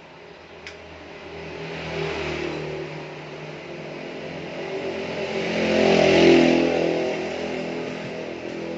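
A motor vehicle engine passing by: it grows louder to a peak about six seconds in, then fades.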